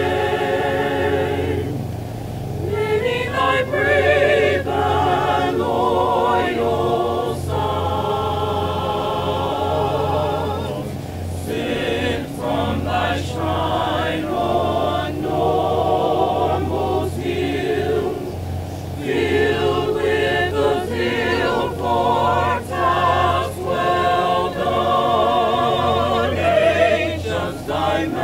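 A choir singing a slow song in long held phrases with wide vibrato, breaking off briefly twice.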